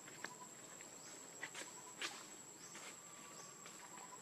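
Faint forest ambience: a steady high-pitched insect drone, with a few soft clicks and several short falling chirps.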